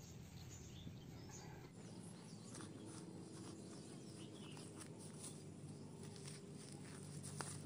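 Faint scraping and scratching of fingers and a stick working wet mud and grass, in short irregular strokes, with an occasional faint bird call.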